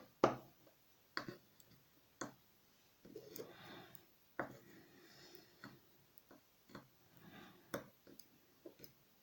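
Faint, scattered clicks and taps of small lock parts being handled while an old Ruko cabinet lock is taken apart, with short stretches of soft scraping.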